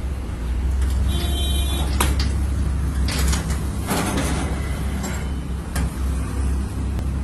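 Semi-automatic carton strapping machine running with a steady low hum while a cardboard box is turned and slid across its steel table top, with a few knocks and a short scrape about two to four seconds in.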